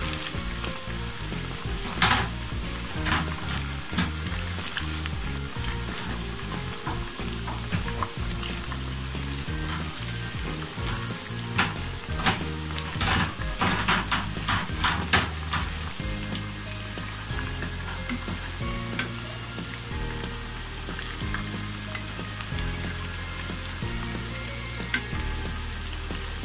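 Chicken pakoras deep-frying in hot oil in a wok, a steady sizzle. A wire spider skimmer clicks and scrapes against the wok as the pieces are turned, with a quick run of clicks about halfway through.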